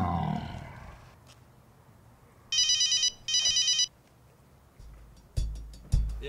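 Mobile phone ringing: two short bursts of a fast-warbling electronic ring, each just over half a second, a few seconds in. A low drone fades away in the first second, and heavy drum beats start near the end.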